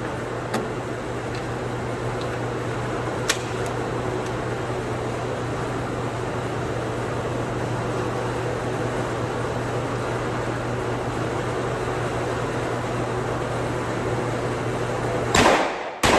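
Steady fan-like hum with a low drone and a couple of faint clicks. Near the end come two loud gunshots in quick succession from the B&T APC10.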